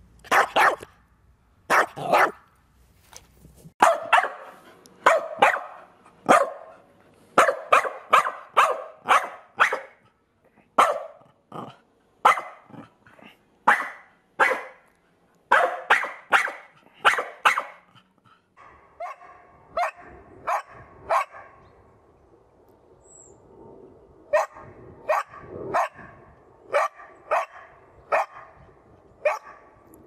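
Several dogs barking angrily one after another: sharp, loud barks coming singly and in quick runs of two to four, with short pauses between runs.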